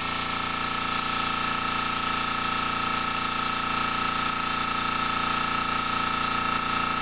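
Gravity-feed airbrush spraying paint with a steady hiss of air, over a steady mechanical hum.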